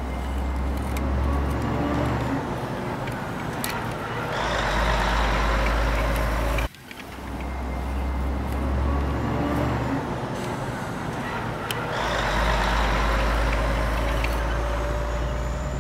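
Sound effect of a heavy digger's engine running and working, growing louder about four seconds in. The effect is looped: it cuts off abruptly about seven seconds in and starts over.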